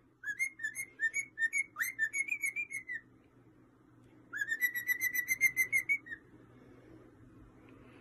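Cockatiel whistling: a run of short, clear notes at a fairly steady pitch for about three seconds, then after a pause a second, quicker run of about two seconds.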